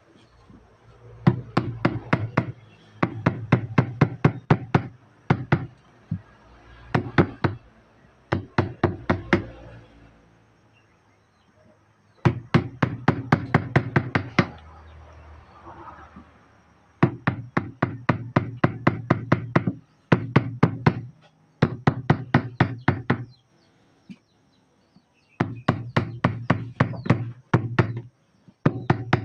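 Carving chisel driven into wood by a mallet: quick runs of sharp taps, about six a second, broken by short pauses.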